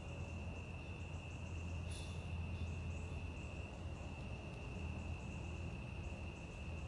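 Night insects calling: crickets giving an unbroken high trill, with a second, higher insect chirping in quick regular pulses above it, over a low steady rumble and one brief tick about two seconds in.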